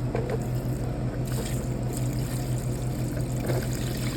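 Slimy water cleared from a clogged AC condensate drain line being poured out, trickling and splashing, over a steady low machine hum.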